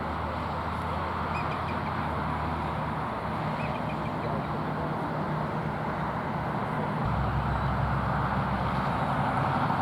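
Steady outdoor dawn ambience: a dense bed of background sound with a few faint, short series of high chirping bird calls. A low rumble of road traffic grows louder about seven seconds in.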